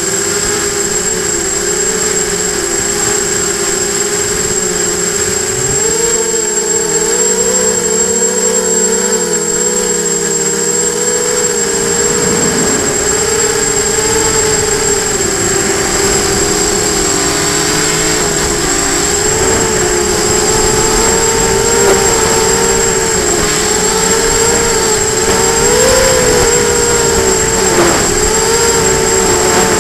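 FPV hexacopter's electric motors and propellers whining steadily, heard through the onboard camera's microphone, the pitch wavering slightly as the throttle changes. From about halfway a low rumble of wind on the microphone joins in.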